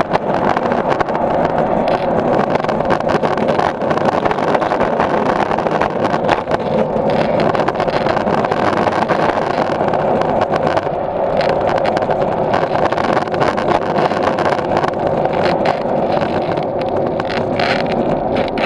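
Skateboard wheels rolling over a smooth concrete garage floor, a steady, continuous rolling noise picked up close to the board.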